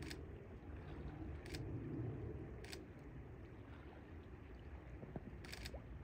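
Low, steady rumble of river water with wind, with four brief sharp high-pitched sounds over it, the last a quick double.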